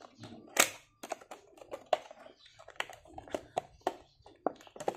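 Stiff clear plastic packaging handled and flexed in the hands: a run of sharp plastic clicks and crackles, with one louder snap about half a second in.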